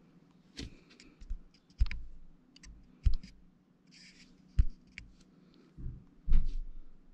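About half a dozen scattered clicks and dull knocks from fingers tapping and handling a smartphone being set up, with a brief rustle in the middle and the loudest knock near the end, over a faint steady hum.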